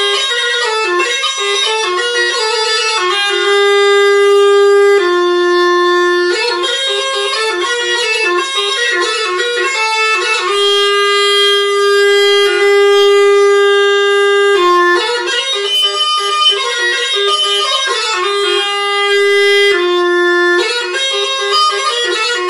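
Instrumental music: a single wind instrument playing a melody, long held notes alternating with quick ornamented runs.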